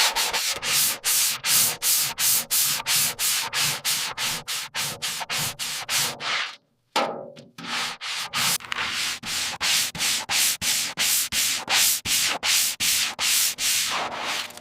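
Hand sanding: rapid, even back-and-forth strokes of an abrasive rubbing a surface, about three to four strokes a second, with a brief pause about halfway through.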